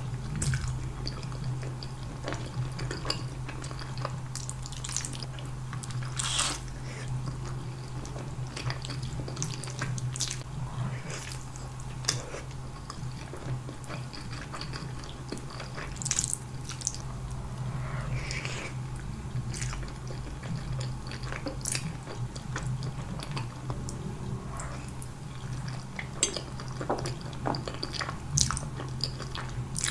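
Close-miked eating of spaghetti and meatballs: wet mouth sounds of noodles being slurped and chewed, with scattered clicks of a fork against the plate, over a steady low hum.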